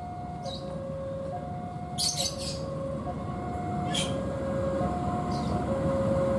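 A level-crossing warning alarm switches steadily between two pitches, changing about once a second. Under it, the low rumble of an approaching diesel locomotive grows louder. Birds chirp briefly a few times.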